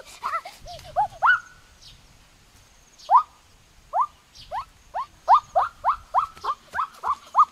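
An animal's call: short rising whoops repeated, sparse at first and coming faster, about three a second, toward the end.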